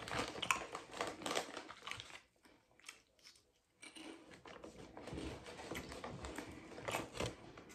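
Faint, irregular crunching and chewing of a snack, with light crinkling of its wrapper.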